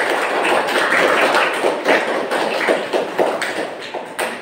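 A group of schoolchildren clapping their hands: dense, quick, overlapping claps that ease off slightly near the end.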